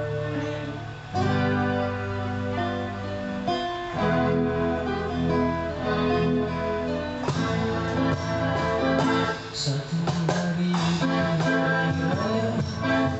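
Strummed acoustic guitar leading a band through an instrumental passage of chords, with sustained low notes underneath.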